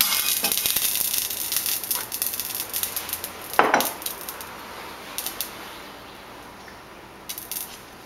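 Hands handling food and dishes on a kitchen counter: a crackly rustle of small clicks that thins out over the first few seconds, a louder knock about three and a half seconds in, and a few light clicks near the end.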